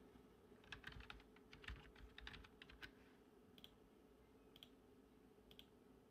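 Faint computer keyboard typing, a quick run of key presses in the first three seconds as a short word is typed. After that come single soft clicks about once a second.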